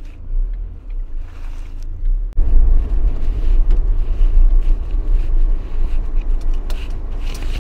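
Ford Transit van driving slowly, heard from inside the cab: a steady low engine and road rumble that turns louder and rougher about two seconds in.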